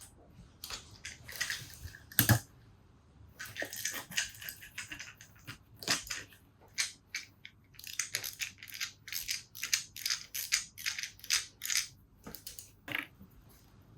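Hands working a Keihin carburettor and its float bowl apart on the bench: an irregular string of light clicks, taps and scrapes of small metal and plastic parts.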